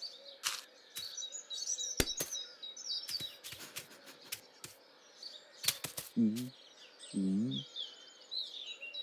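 Small birds chirping, with a scattering of sharp clicks and taps. Two short, low vocal sounds come about six and seven seconds in.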